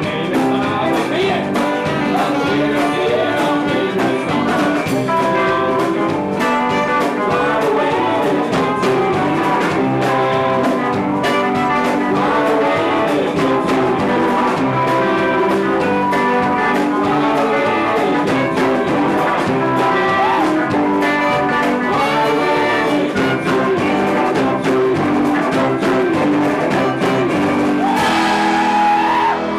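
A live band playing a song, with sustained notes and no break in the music.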